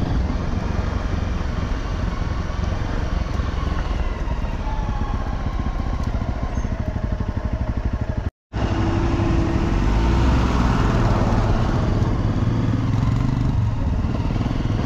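Honda CRF250 dirt bike's single-cylinder engine running steadily while being ridden. The sound drops out for a split second a little past halfway, then carries on.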